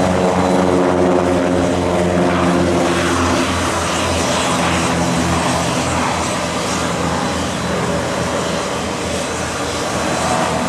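Cessna 337 Skymaster's twin push-pull propeller engines running at takeoff power. A loud, steady propeller drone with a strong humming tone that fades after about three and a half seconds, leaving a broad rushing noise.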